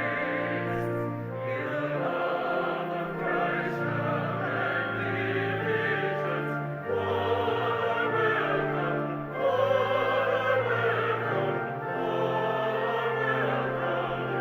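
Church choir and congregation singing a hymn together, with long held low notes underneath the voices.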